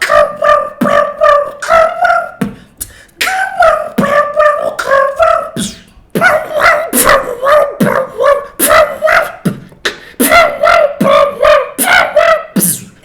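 Human beatboxing: a rhythmic run of short pitched vocal notes punctuated by sharp mouth clicks, about three a second, in three phrases with brief pauses between them.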